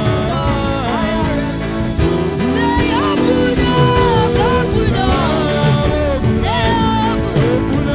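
Worship music: a melodic singing voice over steady band accompaniment.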